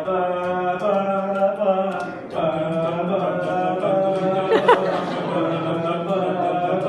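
Voices chanting or humming long held notes at a steady pitch, with a short break about two seconds in. A brief rising squeal cuts through a little past the middle.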